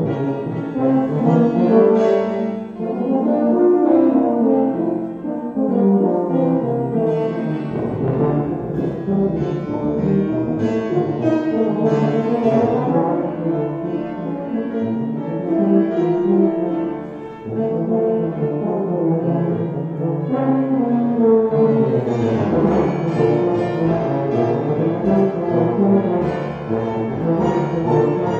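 Tuba, euphonium and grand piano playing a chamber piece together, the brass lines often bending up and down in pitch over the piano's accompaniment.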